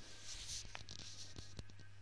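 Soft rustling in the first second, then a few light taps.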